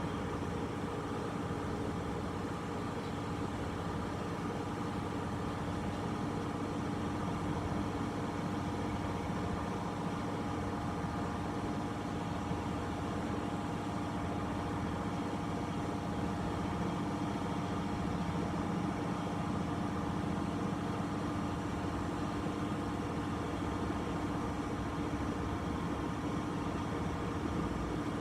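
Okuma GCU 300 cylindrical grinder running: a steady machine hum with several constant tones and no change in level.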